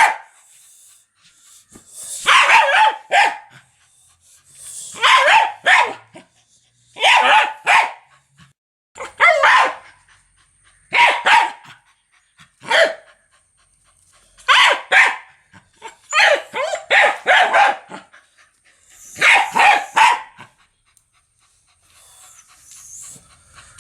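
A dog barking, very loud, in short bouts of two or three quick barks about every two seconds, with brief pauses between.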